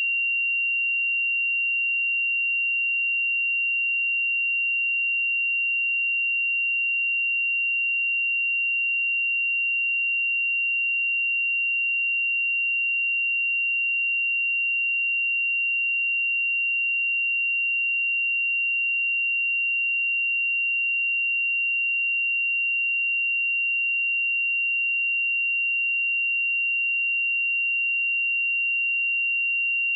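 A steady, unbroken pure sine-wave test tone at 2761 Hz, a single high-pitched note at constant level, used for checking speakers and headphones.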